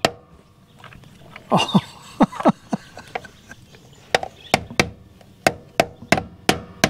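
A rubber mallet tapping a plastic dust cover down onto a DO35 caravan hitch coupling. The light, sharp taps are sparse at first, then come steadily at about three a second in the second half.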